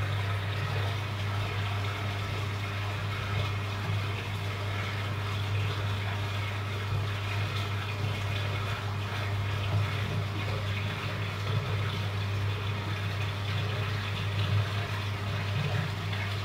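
Aquarium pump or filter running: a steady low hum with water bubbling and trickling over it.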